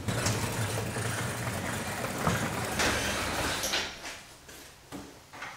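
Overhead garage door opener running, a steady motor hum under the rattle of the door moving along its rails, stopping nearly four seconds in.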